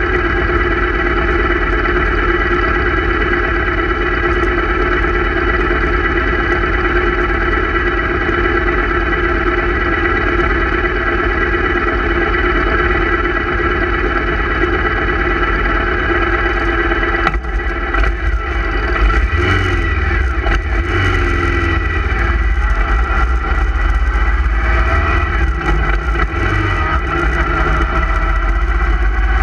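Motorcycle engines idling in a stopped group with a steady note. About two-thirds of the way through the sound changes as the bike carrying the camera pulls away: a heavy low wind rumble on the microphone, with engine pitch rising and falling.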